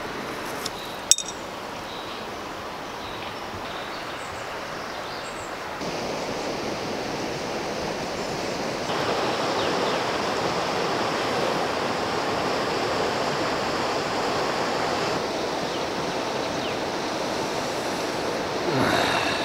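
Steady outdoor rushing noise that steps louder twice. A sharp click comes about a second in, and a rising swish near the end.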